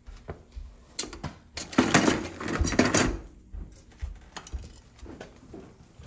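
Hands rummaging through tools and parts: light clinks and knocks, with a louder stretch of clattering and rustling about two to three seconds in.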